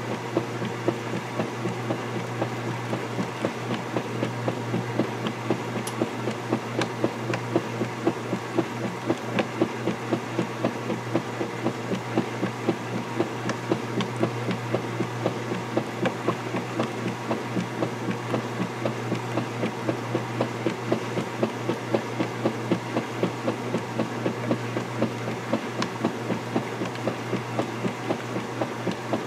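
KitchenAid direct-drive top-load washing machine agitating a load of laundry in sudsy water. A steady motor hum runs under a rhythmic slosh and knock from the finned agitator, about two strokes a second.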